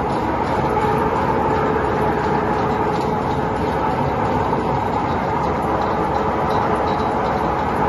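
Waste-tyre recycling machinery of a rubber crumb milling line running steadily: a loud, even mechanical din with a constant hum.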